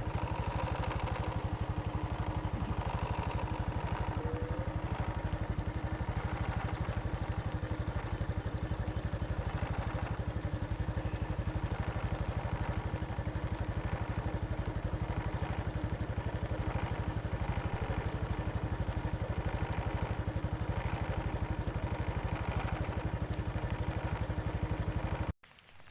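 Small engine running steadily with a rapid, even beat; it cuts off abruptly near the end.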